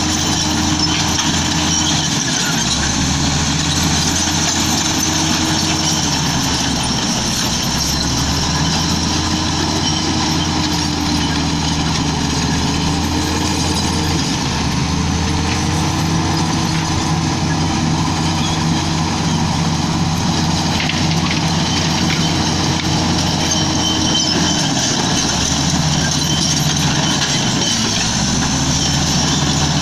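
Komatsu D85E-SS bulldozer's diesel engine running steadily under work, its pitch dipping and recovering several times as the load changes, with a continuous high clattering hiss from the machine.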